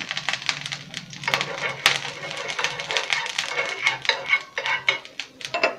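A metal spoon scraping and clicking against a nonstick tawa as oil is spread over the hot griddle: a quick, irregular run of scrapes and taps.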